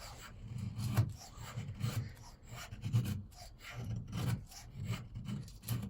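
Leatherman Rebar multitool's knife blade shaving feather-stick curls off a small wooden stick: a series of short scraping strokes, a little under two a second.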